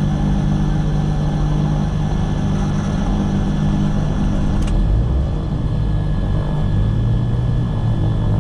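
The left piston engine of a Cessna 340 running steadily at idle just after starting, heard from inside the cockpit, with a slight shift in its low tone about five seconds in.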